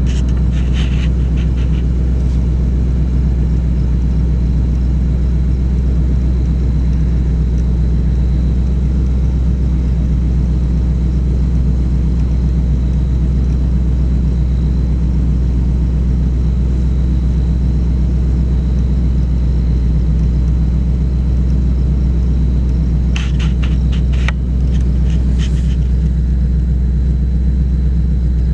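Steady low rumble of an idling car engine, with a few faint clicks near the end.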